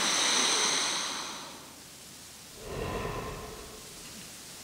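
A person breathing loudly and airily into a close microphone: one long breath fading out over the first second and a half, then a shorter, quieter breath about halfway through.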